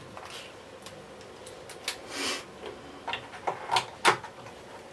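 Scattered sharp clicks and light knocks, with a short scraping rustle about halfway through, as a cordless screwdriver is picked up and set against the screws on a vacuum cleaner's metal base.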